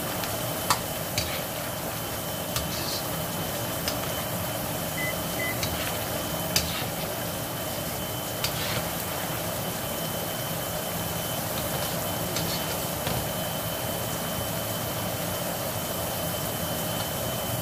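A metal ladle clinks against a wok of simmering sauce now and then, with most clicks in the first half. Under them is a steady hiss and hum.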